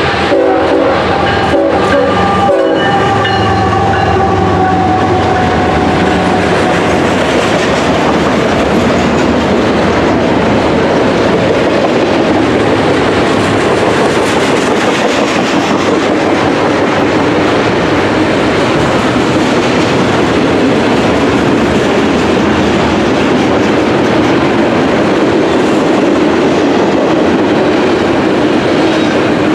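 BNSF diesel locomotive's horn sounding over the approaching engines in the first few seconds, fading and dropping slightly in pitch as the locomotives pass. Then the steady, dense rumble and rattle of a double-stack container train's wheels and cars rolling past on the rails.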